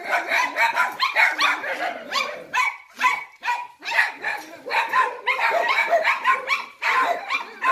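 Several dogs barking and yapping at once, sharp barks overlapping several times a second without a break.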